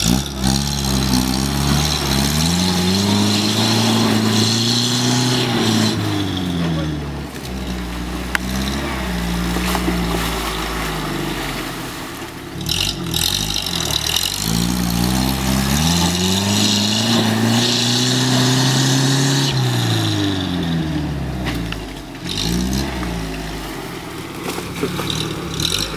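UAZ off-roader's engine revving hard as it pushes through a swampy ford: the revs climb and hold high for several seconds, then drop away, twice over, with a hiss alongside the high revs.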